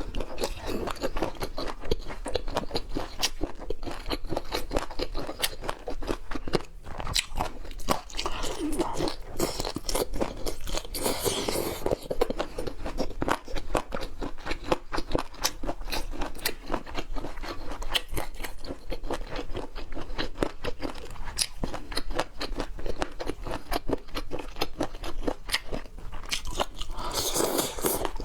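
Close-miked chewing of boneless chicken feet in chili oil: a dense run of crisp crunches and bites, with a couple of longer, noisier stretches about a third of the way in and near the end.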